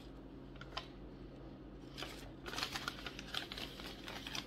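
Paper rustling and crackling as a long folded paper instruction sheet is handled and unfolded, a quick run of crinkles starting about two seconds in, over a low steady hum.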